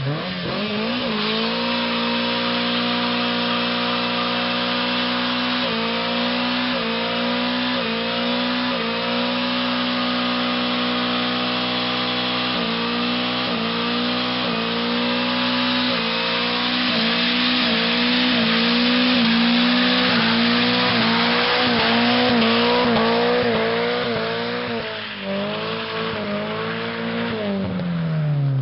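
Holden VL Commodore doing a burnout. The engine revs up quickly, is held at high revs with the revs wavering up and down, and screams over the hiss and squeal of the spinning tyres, then the revs drop away near the end.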